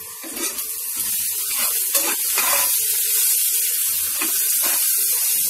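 Sliced onions sizzling in hot oil in a non-stick pan, with a spatula scraping and stirring them through the oil in short strokes. The sizzle grows louder after about a second.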